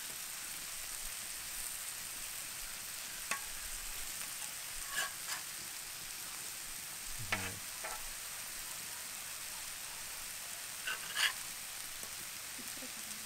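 Marinated chicken leg pieces sizzling on a hot flat metal griddle, a steady high hiss, with a few short sharp clicks and scrapes as metal tongs turn the pieces on the plate.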